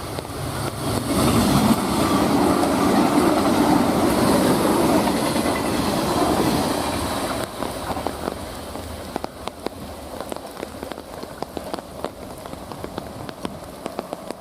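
JR 381 series electric limited express train running past: a rushing rumble of wheels on rails builds about a second in, holds loud for several seconds, then falls away about seven and a half seconds in. Rain patter continues underneath with scattered sharp ticks.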